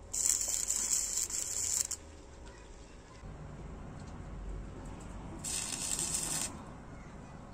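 Two bursts of spraying hiss: the first is about two seconds long right at the start, the second about a second long, around five and a half seconds in.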